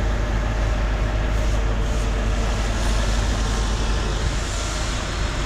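A steady low rumble with a hiss above it, unchanging throughout.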